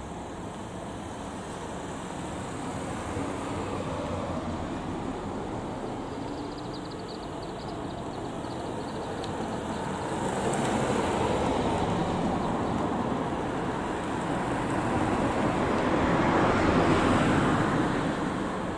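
Road traffic noise: vehicles going past, the sound swelling about ten seconds in and again, loudest, near the end.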